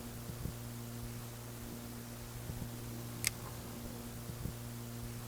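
A steady low electrical hum over a background hiss, with a few faint ticks and one sharp click about three seconds in.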